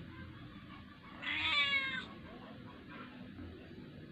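A kitten meowing once, a drawn-out meow of under a second starting about a second in, its pitch falling toward the end: a kitten begging for food.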